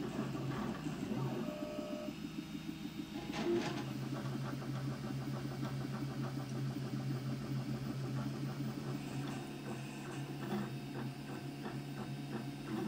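3D printer running a print: the stepper motors buzz and whirr in quick, changing patterns as the hot end moves, over a steady low hum. There is one sharp click about three and a half seconds in.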